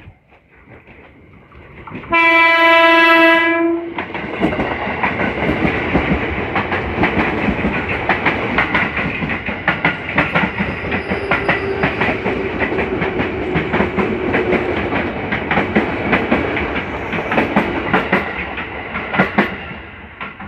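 A passing train sounds one horn blast of about two seconds. It then runs by at close range, its wheels clacking rapidly over the rail joints for about sixteen seconds before fading near the end.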